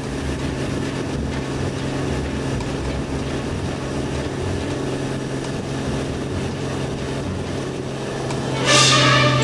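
1937 Chris-Craft Custom Runabout's inboard engine running steadily at speed, over the rush of water and wind. Music comes in loudly near the end.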